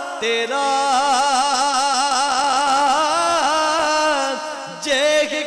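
A man singing the last line of a Punjabi couplet, drawing out the final word "tera" in long held notes with a strong, wavering vibrato.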